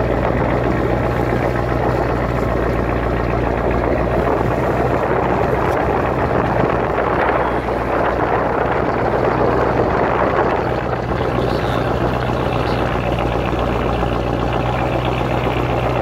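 Boat engine running steadily with a low, constant hum, under a steady rushing noise.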